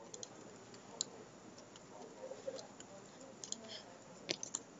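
Faint, scattered clicks of a computer keyboard and mouse, with a few sharper ones about a second in and near the end.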